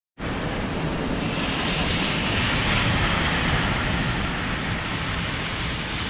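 Steady rushing noise of traffic on a wet, slushy city street, with wind buffeting the microphone; the hiss swells a little near the middle.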